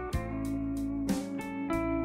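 Background guitar music, plucked and strummed, with a new chord about once a second.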